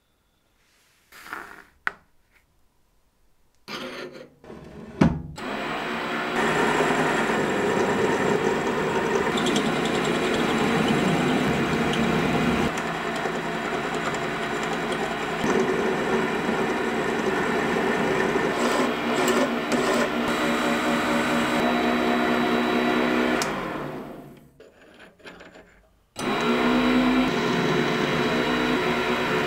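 A few light clicks, then a metal lathe starts up and runs steadily while turning a small steel rod. Near the end it stops for about two seconds and starts again.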